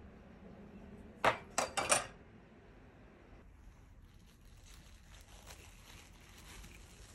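A steel chef's knife clinks against a glass bowl four times in quick succession as diced pineapple is scraped off it. After that comes a faint, steady crinkling of plastic cling film being peeled off a cake tin.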